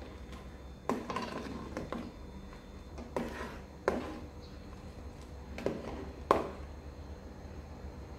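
Metal ladle clinking and scraping against an aluminium cooking pot while pork is stirred in the simmering broth: about six sharp knocks a second or so apart, the loudest about six seconds in, over a low steady hum.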